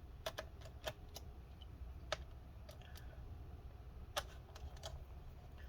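Faint, irregular small clicks and ticks: a screwdriver backing screws out of a laptop's bottom case, with the small screws being set down on a desk, about a dozen scattered clicks over a low hum.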